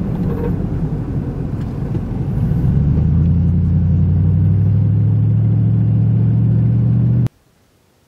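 Low, steady drone of engine and road noise heard inside a truck's cab while driving on a highway, getting a little louder and steadier about three seconds in. It cuts off abruptly near the end, leaving faint outdoor quiet.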